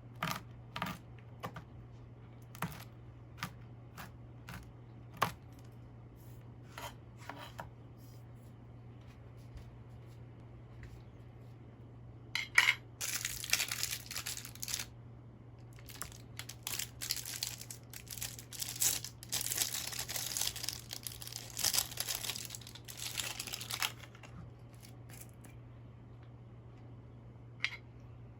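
Packaging being crinkled and torn for about ten seconds, after a run of light clicks and taps, over a steady low hum.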